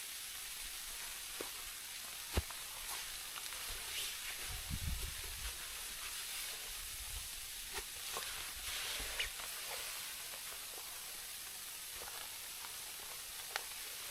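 Steady hiss of wind-driven snow against a tarp shelter, with scattered light taps and one sharper knock about two seconds in. A low rumble of wind comes through around five seconds.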